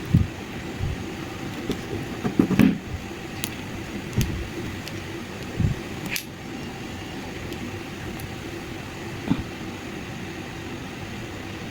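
Steady fan-like hum, with a handful of short low knocks and a few sharp clicks scattered through, such as small objects being handled on a work surface.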